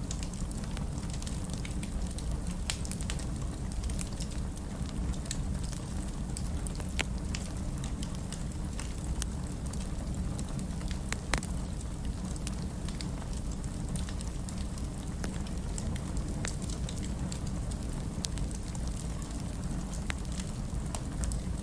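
Wood fire burning in a fireplace: a steady low rumble of flames with scattered sharp crackles and pops, a few of them louder.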